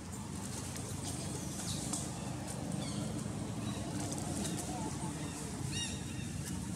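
Steady low background rumble with faint, indistinct voices. About six seconds in comes a quick run of high chirping calls.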